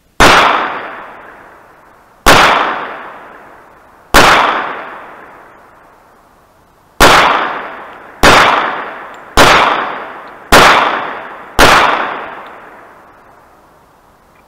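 Kimber .45 ACP pistol fired eight times, single shots, the first three a couple of seconds apart and the last five quicker, about one a second. Each loud report trails off over a second or two.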